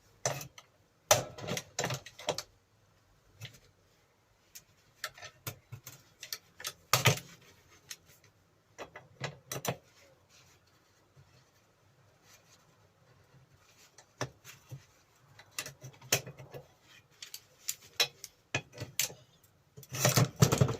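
Irregular metallic clinks and clanks of hand tools, mole grips and spanners, working on the bench grinder's steel cover bolts, with short pauses between clusters of strikes.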